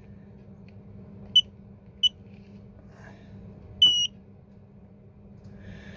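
Handheld battery tester beeping: two short key-press beeps, then a longer beep about four seconds in as it starts its load measurement of the battery. A faint steady low hum runs underneath.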